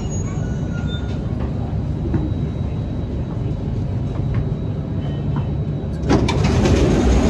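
Steady low rumble and hum of an MRT train standing at a station platform. About six seconds in, a louder rushing noise sets in suddenly.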